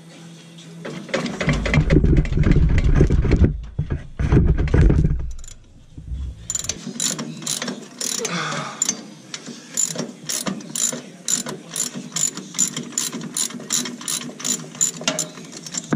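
Socket ratchet wrench clicking steadily, about three clicks a second, as a bolt is turned; in the first half, a few seconds of heavy low-pitched knocking and handling noise.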